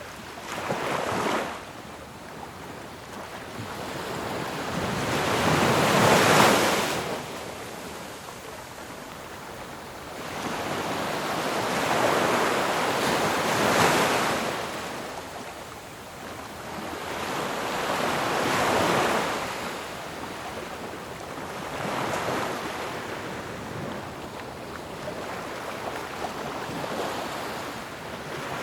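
Ocean waves breaking and washing in, a hissing surge that swells and fades about every five to six seconds, the loudest about six seconds in.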